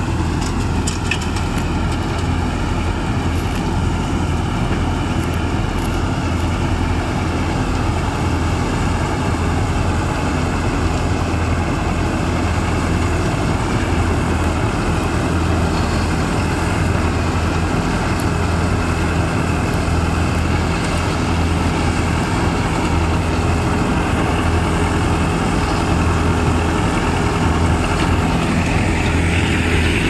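Farmtrac 6055 tractor's four-cylinder diesel engine running steadily, driving a tractor-mounted mini combine harvester at work.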